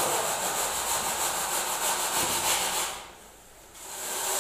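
Straightedge scraped across a freshly laid wet cement floor while screeding it level, a rhythmic rasping rub. It drops away briefly about three seconds in, then resumes.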